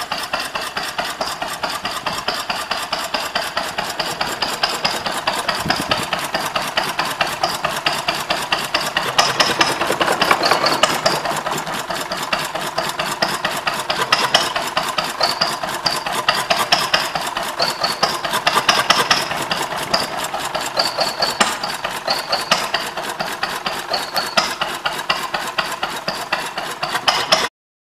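Bruneau 12 hp vertical single-cylinder stationary petrol engine running steadily with a fast, even beat and mechanical clatter.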